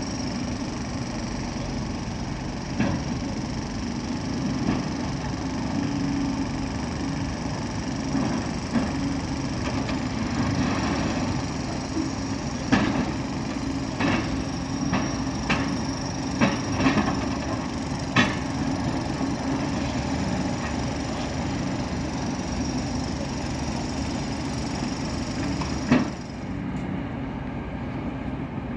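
Heavy demolition excavator running steadily while working concrete bridge debris, with scattered sharp cracks and knocks as the material breaks, several in quick succession around the middle. A loud knock comes near the end, after which the sound thins out.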